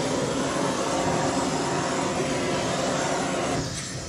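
MIG welder arc, a Millermatic 255, running a steady weld that strikes up abruptly and dies away near the end.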